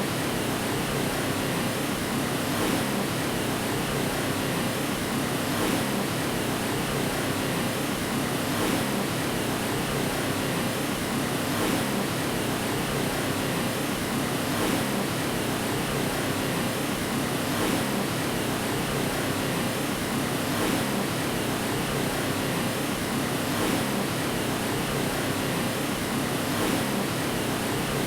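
Steady white noise: an even, unbroken hiss with almost nothing in the deepest bass.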